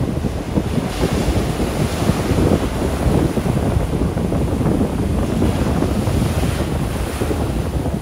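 Ocean surf breaking and washing in on a windy morning, with wind buffeting the microphone in a steady low rumble. The hiss of the surf swells about a second in and again near the end.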